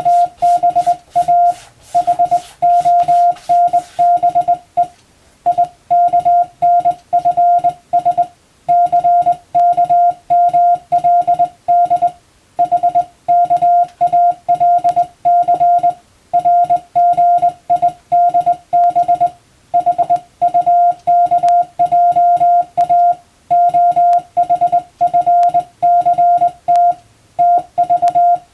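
Morse code (CW) sent by hand as telegram practice text: a steady mid-pitched tone keyed on and off in dots and dashes, with short pauses between letters and longer ones between words. For the first four seconds or so, sharp clicks come with each element.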